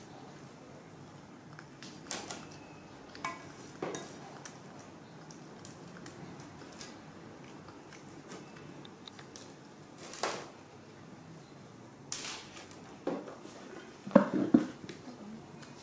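A baby monkey's hands knocking and scraping against a metal rice pot as it grabs rice: scattered clinks and knocks, with a louder clatter of several knocks near the end.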